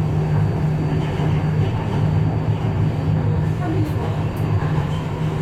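Incheon Subway Line 2 metro train running, heard from inside the front car as a steady low rumble and hum.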